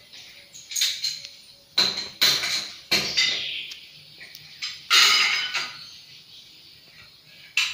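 Several sharp knocks and clatters at irregular intervals, the loudest about five seconds in.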